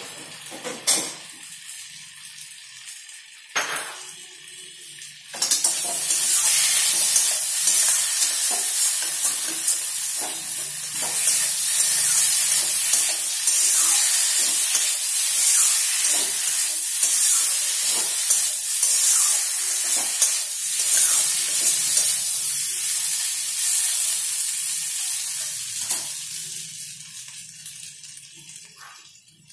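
Boiled, fried potato pieces sizzling in hot oil and masala in a metal kadai, stirred with a metal spatula that scrapes the pan. A few knocks of the spatula come first; about five seconds in a loud sizzle starts and carries on with the stirring, fading near the end.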